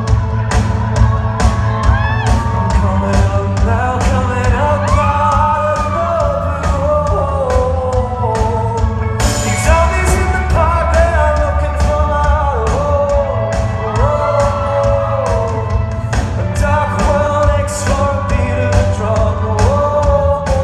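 Live rock band and singer performing a song, with a steady drum beat and heavy bass under the sung melody. About nine seconds in the band grows fuller and brighter, with cymbals crashing.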